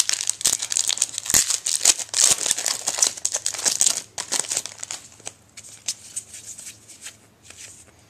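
Foil wrapper of a Topps Unique baseball card pack being torn open and crinkled by hand: a dense crackling that thins to scattered crinkles after about five seconds.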